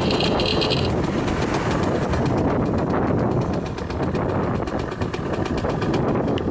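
Kawasaki KSR80's two-stroke single-cylinder engine running with rapid, even exhaust pulses, with a brief high whine in the first second. It runs softer after about three and a half seconds, and revs cleanly with no abnormal noise.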